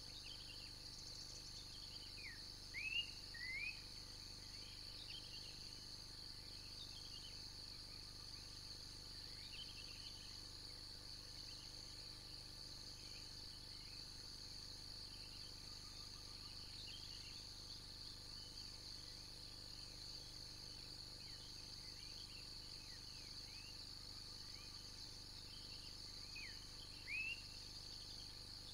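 Steady high-pitched insect chorus with birds calling now and then. The loudest are a few quick sweeping bird calls about three seconds in and again near the end.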